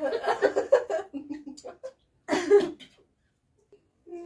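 Muffled laughter through a mouthful of food, and a single cough about two and a half seconds in.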